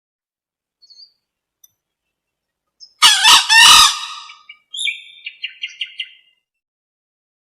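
Green junglefowl calling: one loud harsh call lasting about a second, followed by a run of about six quick short notes that fade out.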